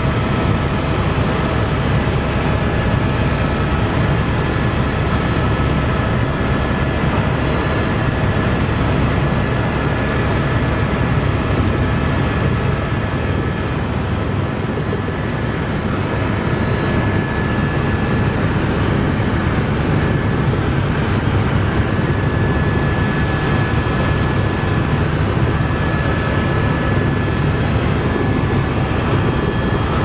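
Helicopter in flight heard from inside the cabin: a loud, steady drone of rotor and engine, with thin steady tones above it.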